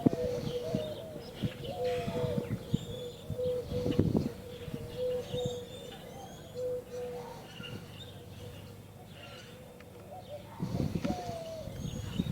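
Birds calling: a run of short, low, repeated cooing notes, some sliding down, fades out after about seven seconds, with higher chirps from smaller birds throughout. A couple of low bumps on the microphone come about four seconds in and again near the end.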